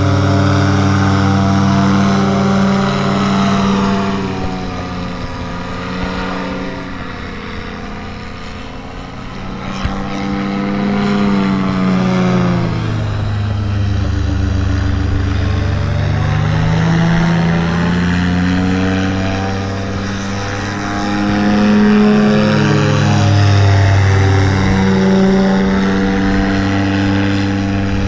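Paramotor engine and propeller droning as it flies passes overhead, its pitch dipping and rising again several times as it goes by.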